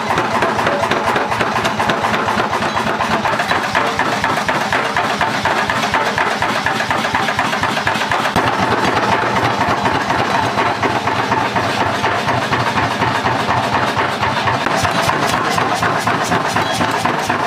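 A motor-driven machine running steadily with a fast, even beat.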